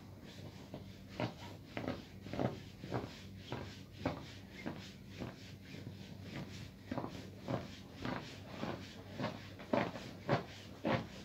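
Upright garment steamer in use on a hanging black abaya: a steady low hum under a run of short soft knocks and puffs, about two a second.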